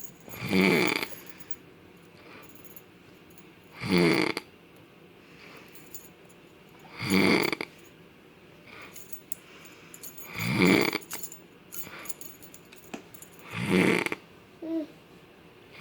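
A sleeping man snoring loudly: five snores, each under a second long, coming about every three and a half seconds.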